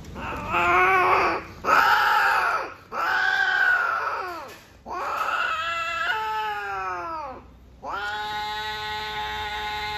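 Female cat in heat yowling while being mated, the male gripping her scruff: five long, loud yowls in a row, several dropping in pitch as they end, the last one held on.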